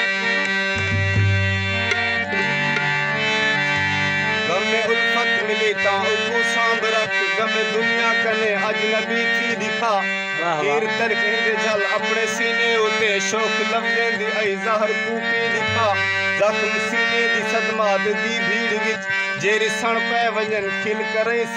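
Harmonium playing: a reedy melody over low held notes, with a wordless sung line that wavers and glides in pitch over it from about four seconds in.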